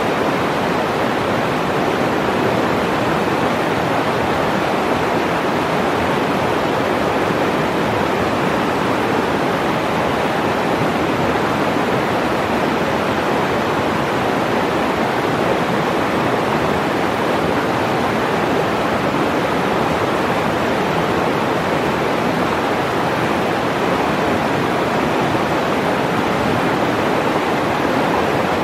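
A fast, shallow mountain river rushing over a rocky bed in a steady whitewater rush.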